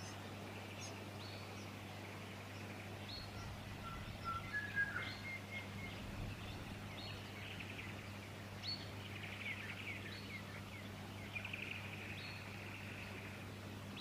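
Fuscous honeyeater nestlings begging in bursts of scratchy, buzzy calls as an adult comes to the nest. Short high chirps and a few clear whistled notes, loudest about four to five seconds in, come from birds around the nest, all over a steady low hum.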